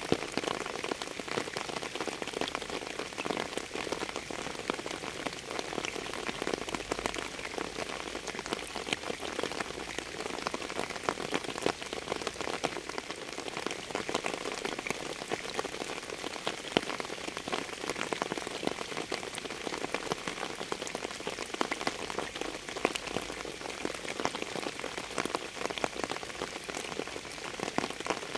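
Steady rain falling on a surface: an even hiss scattered with many separate drop ticks.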